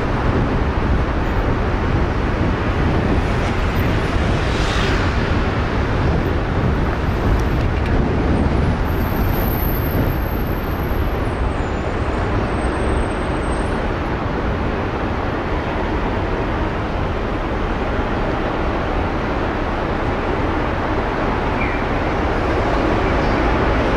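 Steady city street noise, mostly road traffic running past.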